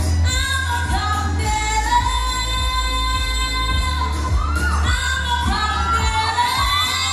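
A woman singing into a handheld microphone over a backing track with a heavy bass. She holds long notes, then bends and wavers the pitch in the second half.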